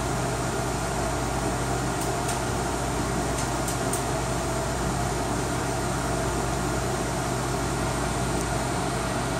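Fans of a newly built desktop PC in an NZXT Phantom 240 case running steadily at its first power-up, an even whirr with a constant low hum. A few faint light ticks come about two to four seconds in.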